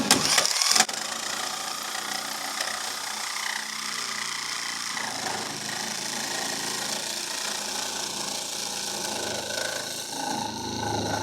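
Makita power tool making relief cuts through a rusty steel radiator support: a loud bite in the first second, then a steady cutting noise.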